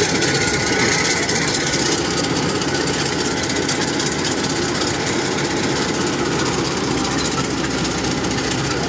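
Kubota DC-105X rice combine harvester working as it cuts rice: a loud, steady engine with a fast, dense mechanical clatter from the header and threshing gear.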